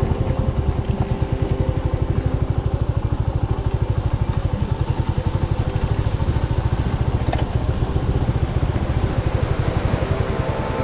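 Motorcycle engine running steadily as the bike is ridden, with an even, rapid low pulse.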